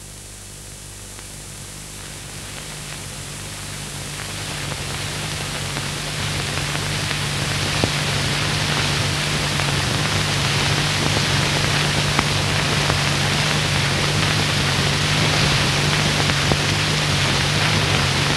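Steady hiss that swells over the first several seconds and then holds, with a low steady hum underneath.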